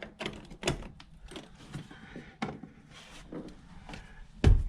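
Irregular small clicks and taps of Wiremold surface raceway parts being handled and slid into place on a wall, with a few loud knocks near the end.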